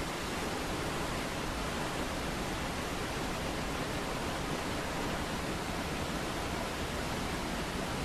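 Mountain waterfall rushing steadily, an even, unbroken wash of falling-water noise.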